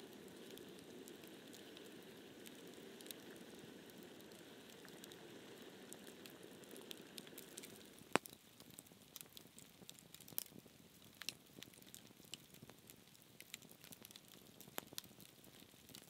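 Metal kettle on a wood campfire giving a steady low hiss as it heats, with a few crackles. About halfway through the hiss stops, leaving only the fire's sparse crackles and pops, with one sharp pop at the change.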